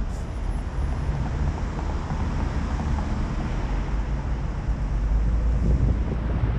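Low, steady rumble of a car's engine and road noise picked up by a camera on its roof, with wind on the microphone. It grows a little louder near the end as the car moves forward.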